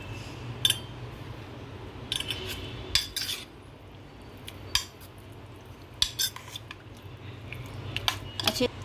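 Utensils clinking and knocking against a bowl in short, irregular taps as pieces of soya chaap are moved into a curd-and-spice marinade. A steady low hum runs underneath.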